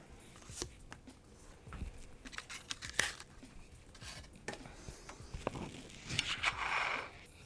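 Small clicks and taps from hands handling the computer parts around the CPU socket, with a papery rustle lasting about a second near the end.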